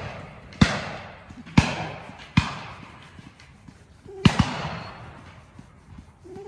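Shotgun shots from the guns on a pheasant shoot: three single shots about a second apart, then a quick pair, each trailing off in a long rolling echo. A dog gives a short whine near the end.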